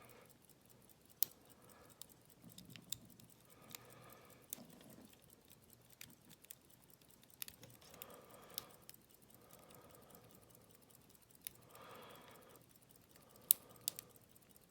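Faint, scattered light clicks and ticks of a lock pick and tension wrench working the pins inside an Abus 72/40 padlock, with a few sharper clicks near the end.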